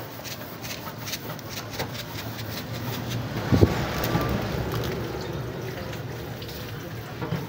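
Coconut milk simmering in a pan, with bubbles popping in a steady run of small crackles. A single louder knock about halfway through.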